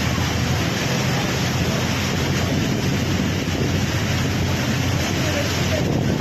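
Steady roar of strong cyclone wind buffeting the microphone.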